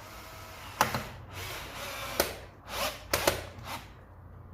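Power drill driving in a screw, running in short bursts with a few sharp clicks between them.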